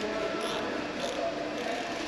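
Faint metallic clicks, about two a second, as a wrench works a fitting on a diesel turbocharger, over a steady low hum.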